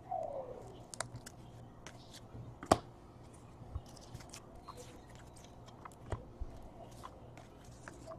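Baseball trading cards being flipped through by hand: faint, scattered clicks and taps of card against card, with one sharper tap a little under three seconds in.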